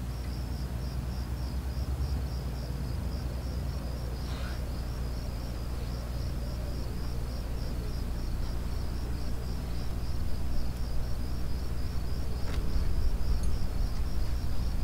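Night ambience from a horror film's soundtrack: a steady low rumble under rhythmic insect chirping, about four or five chirps a second, growing slightly louder toward the end.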